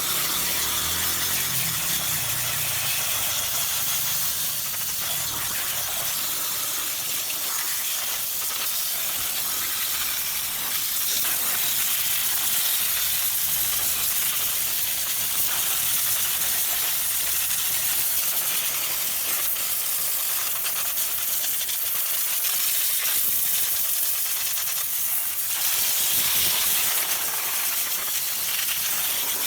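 Steady hiss of a spray jet cleaning a dirty engine bay, running without a break; a faint low rumble fades out in the first few seconds.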